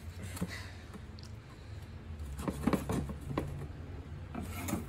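A box cutter slitting open a cardboard clutch-disc box: scattered scrapes and clicks of blade and handling on cardboard, busiest from about two seconds in.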